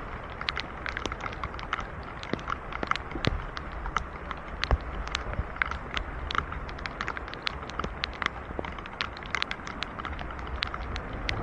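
Rain falling, with many raindrops ticking irregularly close to the microphone over a steady hiss.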